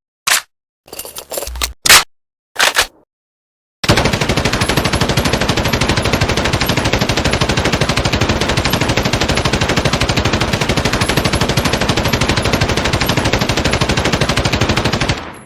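PKP Pecheneg machine gun: a few single shots and a brief clatter, then one long unbroken fully automatic burst of about eleven seconds that stops abruptly.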